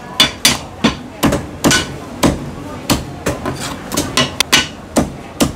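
Chinese cleaver chopping a cooked chicken into pieces on a thick wooden chopping block: a quick, uneven run of sharp chops, about two a second, each blade strike knocking into the wood.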